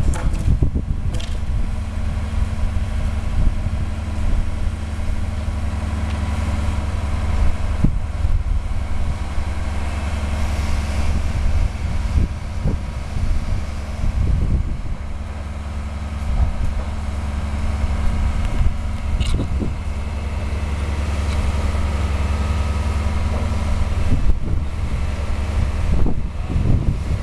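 Mobile crane's diesel engine running steadily with a low, even hum.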